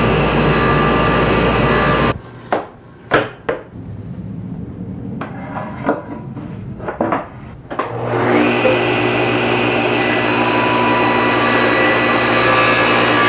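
A power tool runs until about two seconds in and stops. Then come several sharp knocks of wooden boards being handled. About eight seconds in, a table saw motor starts and runs steadily at a high pitch for a cut that straightens the edge of a cherry board, guided by a straight edge taped to it.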